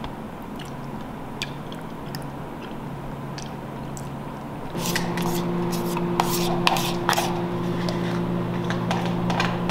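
Plastic spoon scraping and clicking in a plastic cup of soup, with eating sounds; the clicks grow frequent about halfway through, when a steady low hum also comes in.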